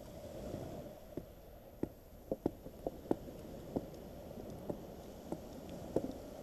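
Handling noise as a box of fresh-caught fish is packed into a cloth bag: irregular light knocks and clicks, about a dozen, over soft rustling.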